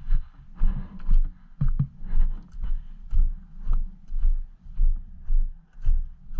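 Footsteps crunching on loose gravel and stones, about two steps a second, each step knocking on the body-worn microphone.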